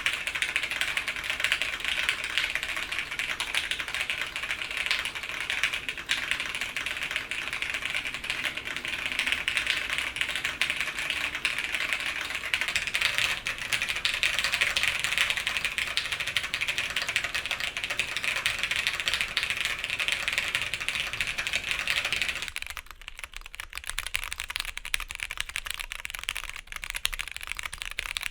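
Continuous fast typing on an OTD 356CL custom mechanical keyboard with a polycarbonate half plate, tactile Clear switches and double-shot keycaps: a dense run of keystroke clacks. A little over twenty seconds in, the sound turns thinner and lighter, losing its lower body.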